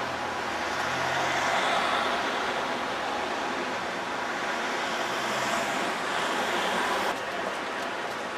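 Road traffic noise: cars passing on a city avenue, a steady rushing hum. About seven seconds in it cuts abruptly to a quieter background.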